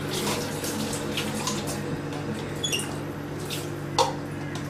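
Water being poured away into a sink, splashing and dripping in small irregular spatters, with a sharp knock about four seconds in, over a steady low hum.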